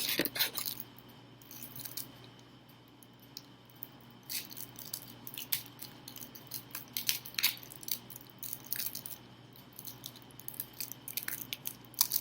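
Scattered small clicks, taps and rustles of a decorative switch plate cover and paper being handled, irregular and sometimes several in quick succession.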